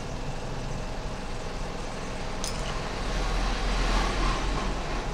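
Steady background rumble and hiss, like traffic noise, getting louder about three seconds in, with one sharp click about halfway through.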